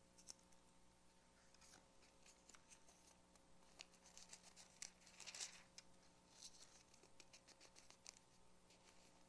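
Faint rustling and light ticks of thin Bible pages being turned and leafed through, with a slightly louder rustle a little past the middle, over a faint steady electrical hum.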